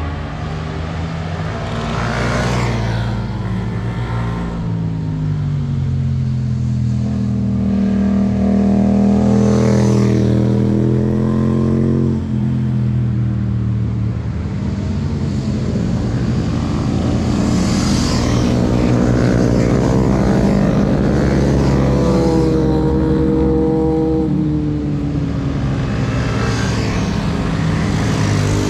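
Motorcycles riding through a bend and passing one after another, about four passes, their engines revving with the pitch rising and dropping as they accelerate and shift.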